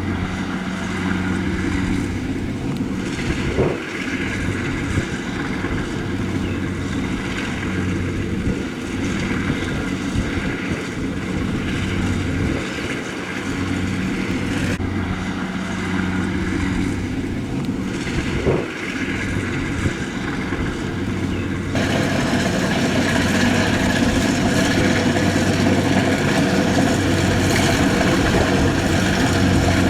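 Rice combine harvester engine running steadily with a low hum. The sound changes abruptly about 15 and 22 seconds in, and is louder and noisier after the second change.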